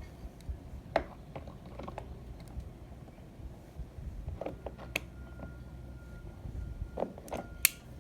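Irregular light clicks and knocks, with a sharper click near the end, and a faint steady high tone coming in about halfway.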